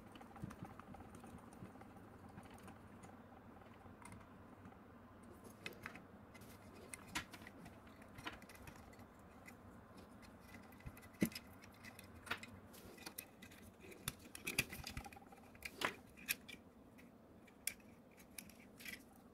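Faint, irregular clicks and taps of small metal parts and a hex screwdriver as a 3D printer module's housing is screwed together and handled. The clicks grow more frequent from about five seconds in, with one sharper knock near the middle.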